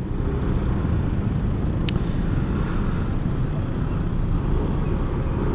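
Yamaha NMAX scooter's engine running with road and traffic noise, a steady low rumble while riding in slow traffic, with a brief tick about two seconds in.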